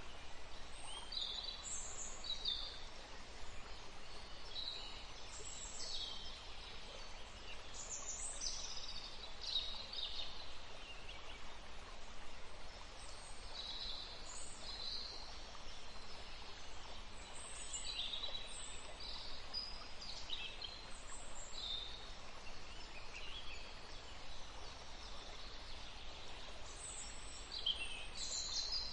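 Several wild songbirds chirping and singing, short calls and whistles overlapping every second or two over a faint steady background hiss.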